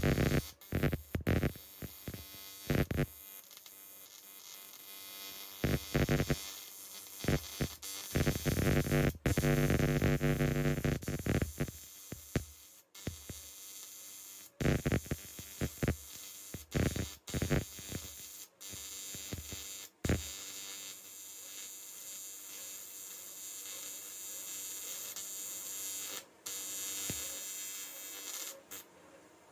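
AC TIG welder arc buzzing in stop-start bursts while aluminum is welded, the arc struck and dropped again and again on the foot pedal, with a fainter steady hum over the last part.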